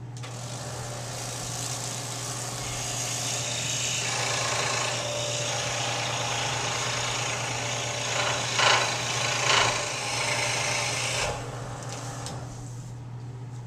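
Scroll saw with a number 12 Flying Dutchman reverse-tooth blade cutting through a taped cherry board, a steady rasping cut that gets louder about four seconds in and has two brief louder surges before it stops abruptly at the end of the cut, a little over eleven seconds in. A steady low hum runs underneath throughout.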